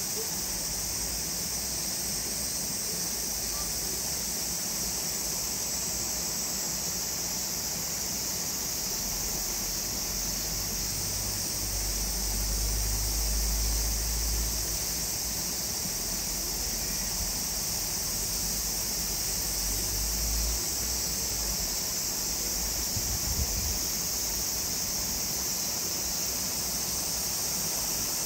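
Steady high-pitched insect chorus droning without a break, with a low rumble swelling briefly around the middle.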